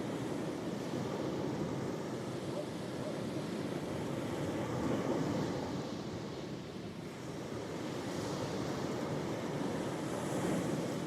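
Ocean waves breaking and washing on the shore, a steady rush of surf that swells and eases, with a slight lull about two thirds of the way through.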